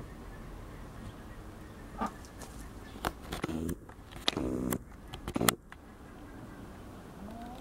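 Two short pitched animal calls about a second apart around the middle, the second the louder, among a few sharp clicks and knocks.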